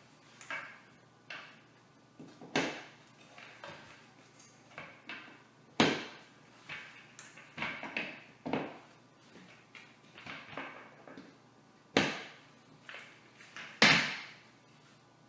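Irregular knocks and clatters of office chair parts being handled and fitted together during assembly, with a few louder knocks among lighter clicks and rattles.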